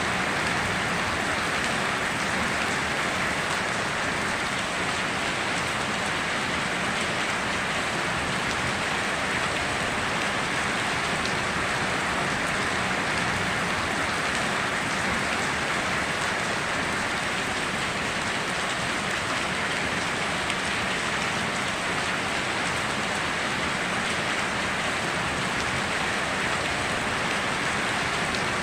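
Rain falling steadily in an even, unbroken hiss, with no thunder.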